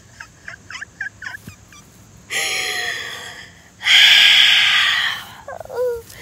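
A woman's frustrated sighs: one breathy exhale, then a louder and longer one, ending in a short groan that falls in pitch.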